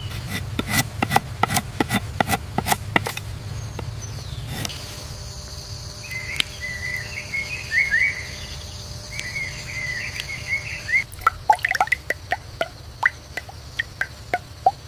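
Liquid dripping in quick, sharp plinks, with birds chirping and a steady high insect hum in the middle stretch. A fresh run of drips comes in near the end.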